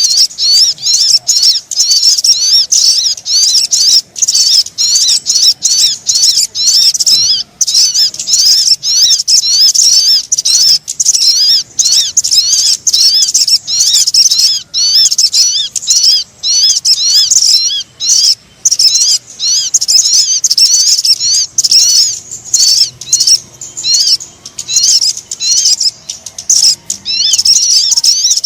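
Bird-trapping lure call for sogon birds: a loud, dense, nonstop chatter of quick high-pitched chirps and twittering notes, broken by brief gaps.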